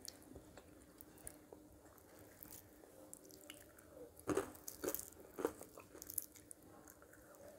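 A person chewing crispy deep-fried spiral potato, faint crunching with a few sharper crunches about four to five and a half seconds in.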